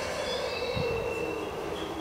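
Light rail tram slowing as it pulls into the platform: a whine falling steadily in pitch, with thin high wheel squeals over it that come in again near the end.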